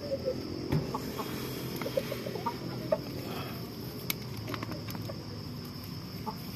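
Rhode Island Red and Black Australorp hens clucking in short, scattered notes, with a few sharp clicks in between.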